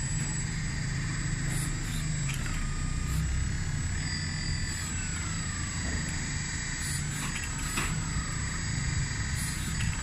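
Hydraulic system of a 1:14-scale RC backhoe loader running, with a steady low hum and a high whine as the loader arm and bucket are worked. The whine shifts in pitch and falls about five seconds in, with a few light clicks.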